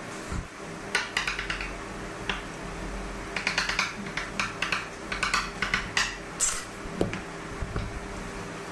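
Long serrated cake knife cutting a sponge cake around a cardboard cake board, its metal blade clicking and scraping against the board edge and the stone counter in quick runs of clicks. A steady low hum runs underneath.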